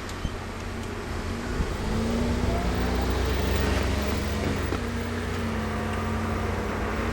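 A train's machinery running: a steady low rumble with faint humming tones that rise slightly in pitch about two seconds in, with wind on the microphone.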